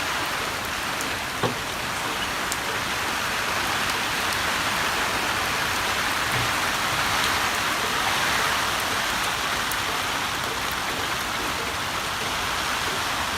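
Heavy rain falling steadily in a dense, even patter. A single sharp knock sounds about a second and a half in.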